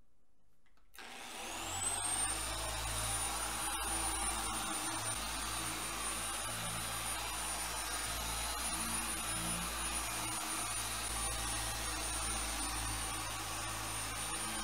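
Electric polisher's motor switching on about a second in, spinning up with a rising whine, then running steadily at speed.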